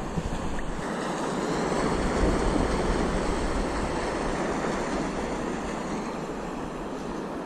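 Steady rushing of wind and sea water, swelling slightly about two seconds in.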